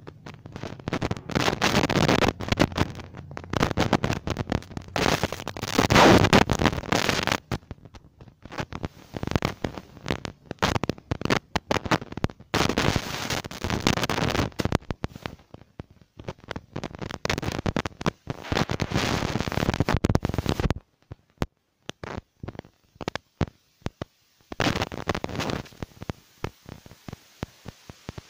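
Loud crackling handling noise on a phone's microphone, dense rustling crackle in long stretches that thins to scattered clicks about two-thirds of the way through.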